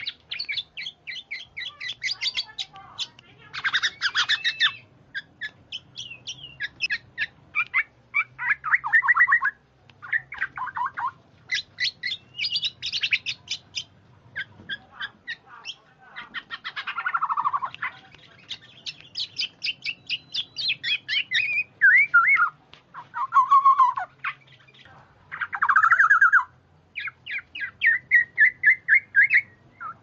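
Kepodang (black-naped oriole) calling. Fast runs of short, sharp chattering notes alternate with lower, harsher calls that fall in pitch, in phrases of a second or two with brief pauses between them.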